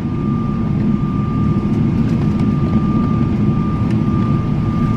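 Steady cabin noise of an airliner taxiing after landing: a dense, even rumble of the jet engines and air systems, with a thin steady whine above it.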